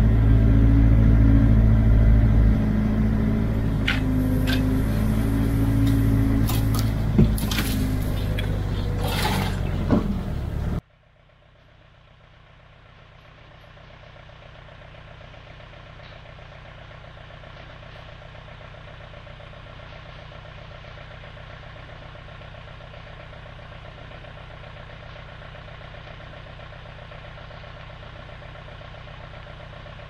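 All-terrain vehicle engine running loud, with a few sharp snaps or knocks over it. About eleven seconds in it cuts off abruptly to a much quieter, steady engine sound that fades up and holds.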